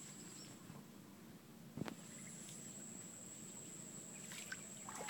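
Faint, steady, high-pitched insect trill, like crickets, with a single short knock about two seconds in.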